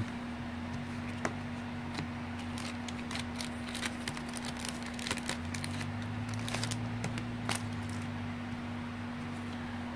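Baseball cards being handled and flipped through: scattered light clicks and rustles of card stock, over a steady low hum.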